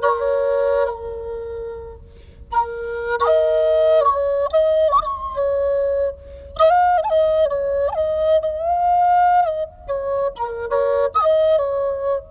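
Flute playing a slow melody of held notes, with a short break about two seconds in.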